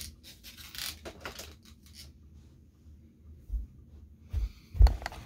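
Handling noises: a few light clicks, then three dull thumps near the end, the last and loudest with a sharp click.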